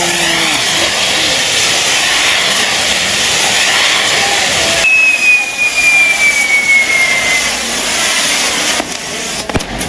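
Spinning firework wheels on a fireworks tower burning with a loud, steady hissing rush. A single falling whistle starts about five seconds in and lasts a couple of seconds, and a few sharp cracks come near the end.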